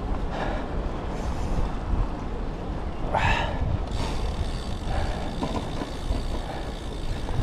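Wind rushing over the microphone and tyre noise from a road bike rolling along tarmac, a steady low rumble, with a short hissing burst about three seconds in.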